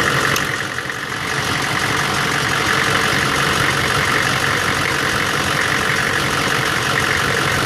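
1999 Chevy 6.5 V8 diesel engine idling, its sound dipping briefly about a second in before steadying again. The rough running is the sign of a bad fuel injection pump.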